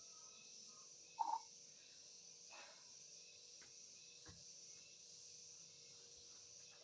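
Near silence: a faint steady high hiss, broken by one short pitched blip a little over a second in and a few faint ticks.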